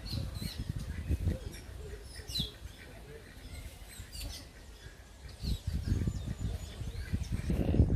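Birds chirping and calling in short high notes, over an uneven low rumble that grows louder in the last couple of seconds.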